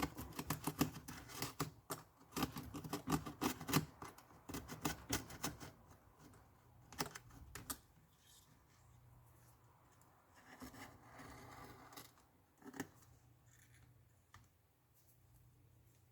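Rapid small scratching and clicking as the iPad's frame is cleaned of leftover broken glass and adhesive. It thins out after about six seconds to a few isolated clicks and a faint rustle.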